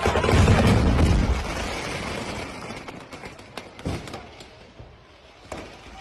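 A large explosion of stored fireworks: a heavy boom that rumbles on for about a second and a half and slowly fades. It is followed by a few sharp, scattered cracks as more fireworks go off.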